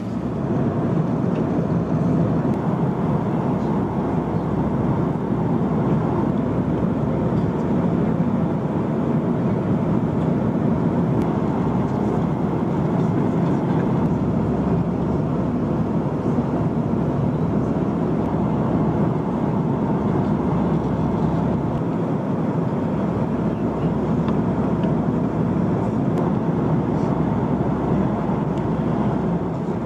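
Steady roar of a four-engined Airbus A340-300's jet engines and rushing air, heard from inside the passenger cabin.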